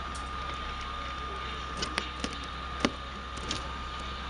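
Steady hiss of a fire hose dousing a burning car, with a thin steady whine through it and a few sharp cracks about two to three seconds in.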